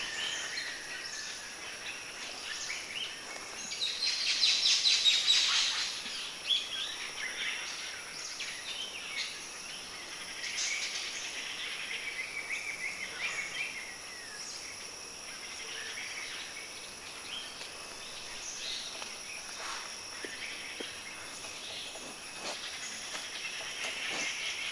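Forest ambience: a steady high-pitched insect drone with scattered bird calls, and a louder, rapid trilling call about four to six seconds in.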